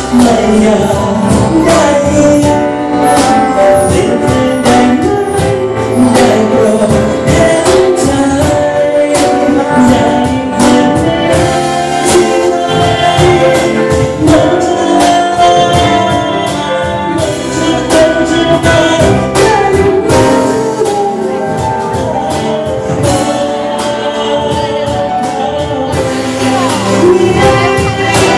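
A live band playing a song: a man singing into a microphone over acoustic guitar, a brass horn and a steady percussion beat.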